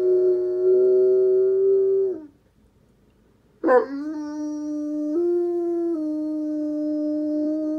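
Saint Bernard howling: one long steady howl that falls away about two seconds in, a pause of about a second and a half, then a second howl that starts with a sharp downward slide and holds a lower note, stepping up briefly in the middle.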